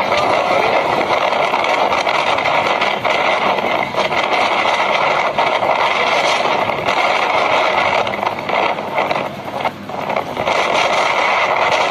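Loud, steady rushing of a rainstorm, heavy rain and wind, with brief lulls near the end.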